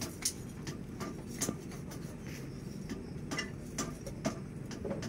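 Blacksmith's tongs and metal pieces clinking lightly as they are handled at a forge: a few sharp, irregular clicks over a steady low hum.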